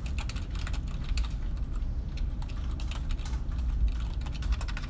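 Typing on a computer keyboard: a quick, irregular run of key clicks, over a low steady hum.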